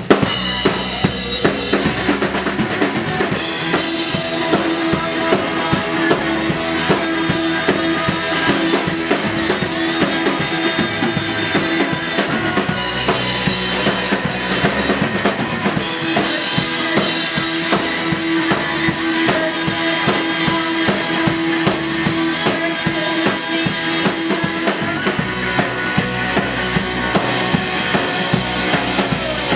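A rock band playing loud, steady music live, the drum kit's kick and snare beat out front, with a long held note over it for stretches.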